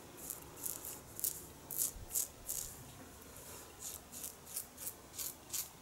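1930s Gillette "New" long open-comb double-edge safety razor cutting lathered stubble on the neck: short, crisp scratching strokes, about three a second.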